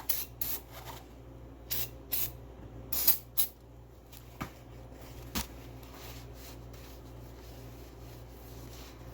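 Aerosol brake cleaner sprayed in about half a dozen short squirts over the first three seconds or so, degreasing spilled oil off a motorcycle engine. Two sharp knocks follow a little later.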